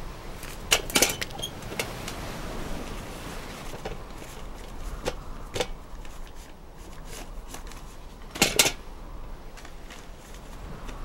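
Metal spoon clinking against a steel pot as sundal is stirred and scooped out: a run of sharp clinks about a second in, a few single clinks, and another loud cluster near the end, over a steady hiss.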